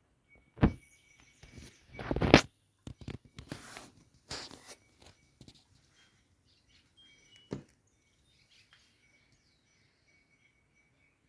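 A few sharp knocks, the loudest about two seconds in, with scraping and rustling handling noise between them, over a faint steady high tone.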